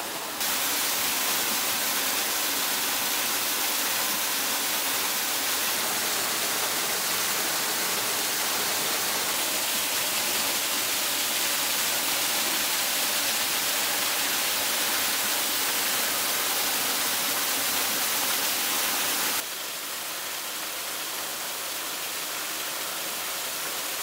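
Thin sandstone-cliff waterfall pouring into a shallow pool: a steady rush of falling water that drops abruptly to a quieter level about five seconds before the end.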